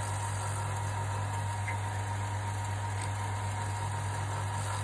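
Wood lathe running steadily with a low motor hum and a faint high whine.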